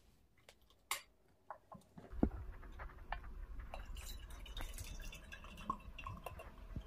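Faint handling noise from a hand-held camera: a sharp click about a second in, then from about two seconds on a low rumble with scattered small clicks and knocks as the camera is picked up and moved over the tea tray.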